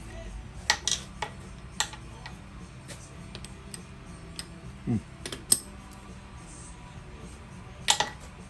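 Scattered sharp metallic clicks and clinks, loudest about a second in and near the end, over a steady low hum, with a short falling squeak about halfway through.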